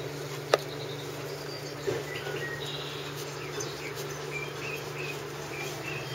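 A steady low buzzing hum runs under faint rustling in wood shavings. There is one sharp click about half a second in, and a few faint short high squeaks in the middle.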